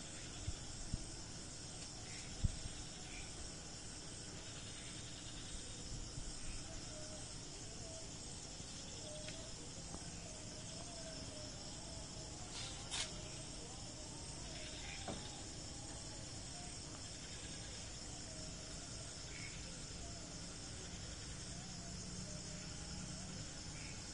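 Steady high-pitched background hiss, with a faint wavering tone underneath and a few isolated soft clicks.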